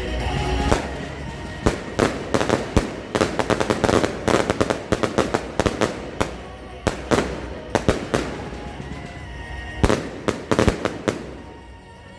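Firework batteries firing in rapid salvos of sharp bangs and cracks, in dense irregular clusters with a short lull about halfway, fading out near the end.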